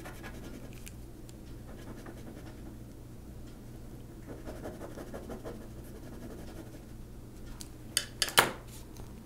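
Gel pen scratching lightly on paper as it is drawn along a stencil edge, over a faint steady hum, with a few sharp clicks about eight seconds in.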